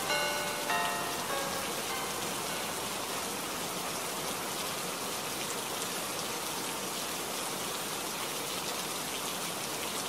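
Steady, even hiss of heavy rain. A few pitched ringing notes fade out over the first two seconds.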